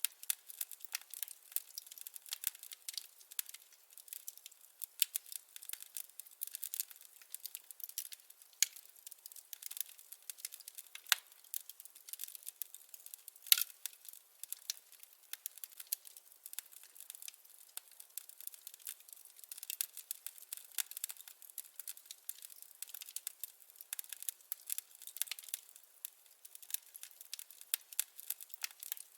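Burning firewood crackling: a steady stream of irregular small snaps and pops, with a couple of louder pops near the middle.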